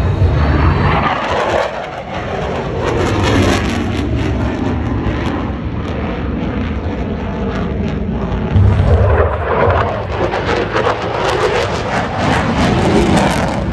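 Fighter jet flying past at an airshow: a loud, continuous rush of jet noise with slow sweeping shifts in tone.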